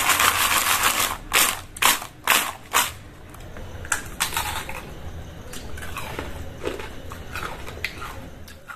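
Crisp deep-fried potato and sabudana pakoras being bitten and chewed: a dense crackle at first, then several sharp separate crunches in the next two seconds, and softer chewing crunches after that.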